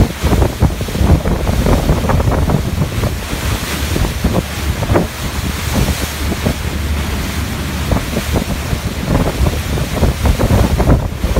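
Wind buffeting the microphone on a moving boat, in loud, uneven gusts over the steady rush of sea water and waves.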